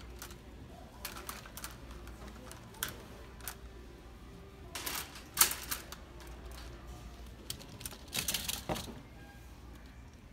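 Plastic clothes hangers clicking and clattering against each other as they are taken off a rack and handled. There are louder rattling clusters about five and eight seconds in, over a steady low hum.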